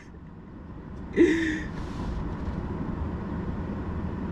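Steady low hum inside a car's cabin, with one short breathy laugh or gasp from a man a little over a second in.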